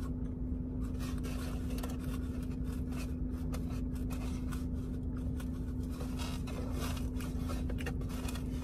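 Small clicks and scrapes of a utensil and food handling as someone eats, over a steady low hum with a constant tone.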